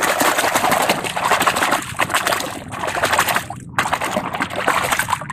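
Muddy water splashing and sloshing as a plastic toy train is swished rapidly back and forth in it by hand to wash it, with a brief break about two-thirds through.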